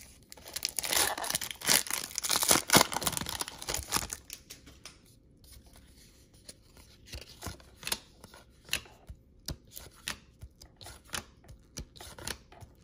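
A 1992-93 SkyBox basketball card pack wrapper being torn open and crinkled for about four seconds, then quieter, irregular light clicks of trading cards being handled and laid down one at a time.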